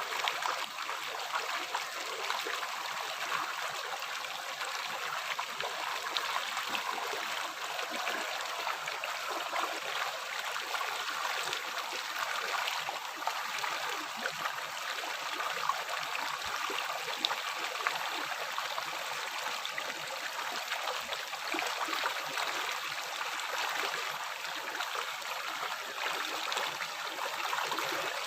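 A river or stream flowing and babbling over rocks, a steady rushing wash of water with small gurgles and splashes throughout.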